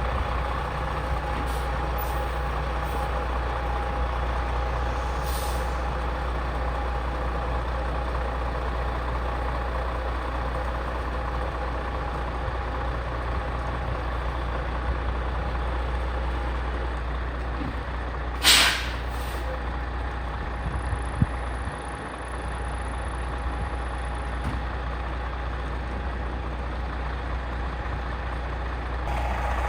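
GMC cab-over truck's engine running at a slow idle while the truck is inched along, with one short, sharp air-brake hiss about two-thirds of the way through.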